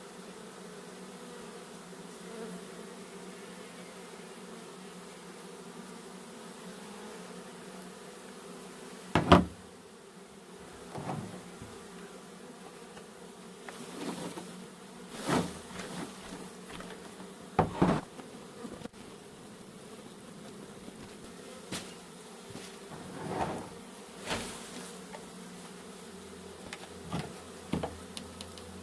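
A mass of honey bees humming steadily, with scattered knocks and thumps breaking in, the loudest about nine seconds in.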